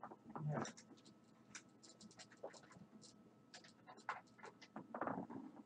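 Cloth rubbing over the metal faceplate of a vintage AIWA hi-fi unit: faint, quick scratchy strokes as the panel is buffed to a shine after polishing.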